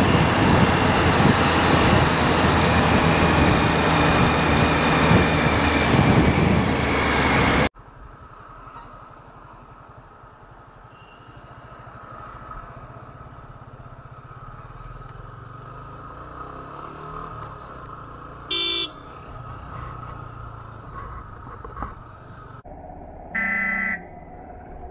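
Triumph Street Triple RS motorcycle riding on an open road, a loud steady rush of engine and road noise that cuts off abruptly about eight seconds in. Quieter street traffic follows, with a steady hum, and two short vehicle horn honks about five seconds apart near the end.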